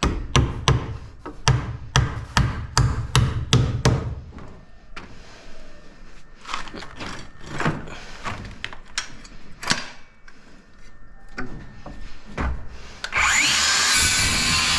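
Hammer driving nails into wooden concrete formwork: a quick run of strikes, about three a second, for the first four seconds, then scattered knocks. Near the end a power tool runs loudly and steadily for about three seconds.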